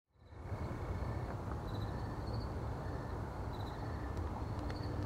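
Outdoor city ambience fading in: a steady low rumble of distant traffic, with faint high chirps repeating every second or so and a few faint clicks.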